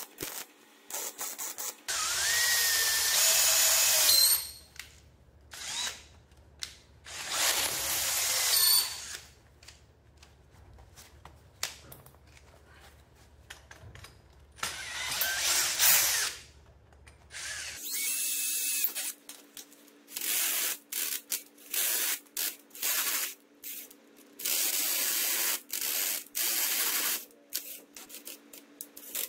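Makita cordless drill run in repeated bursts of a second or two, each started and stopped by the trigger, the first few longer and the rest short and quick.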